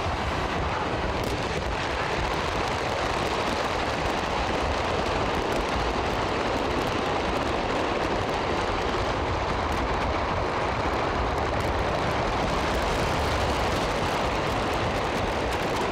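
Steady, dense rumbling noise from inside a moving car, its road and wind noise mixed with the continuous crackle of a large stock of fireworks going off, with no single big bang standing out.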